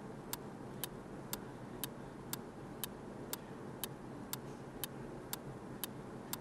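Clock-tick countdown sound effect: faint, even ticks about two a second, counting down the time to answer a quiz question, over a light steady hiss.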